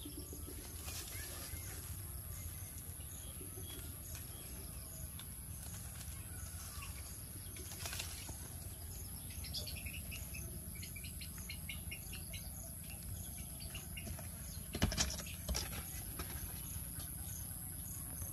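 Outdoor ambience of insects and chirping birds over a steady high-pitched drone, with a couple of sharp knocks about fifteen seconds in.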